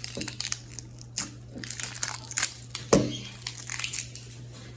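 Plastic toy packaging crinkling and tearing as it is handled, in irregular crackles with the loudest rustle about three seconds in, over a low steady hum.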